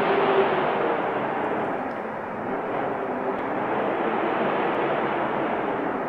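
Snowstorm wind making a steady rushing noise that eases slightly about two seconds in, then holds.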